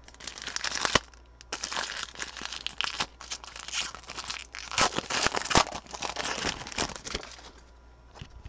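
Silver foil wrapper of a football trading card pack crinkling and tearing as it is ripped open by hand: a run of rustles and sharp crackles that dies down near the end.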